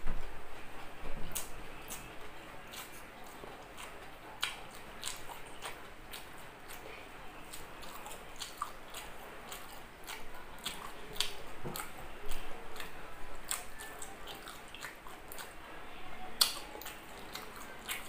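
Close-miked chewing and mouth sounds of someone eating grilled pork jowl with rice and lettuce by hand: irregular wet smacks and crisp clicks, louder just after the start and again near the end.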